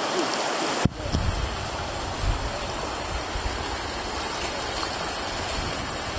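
River rapids rushing steadily over rocks, with a slight change in the water sound about a second in.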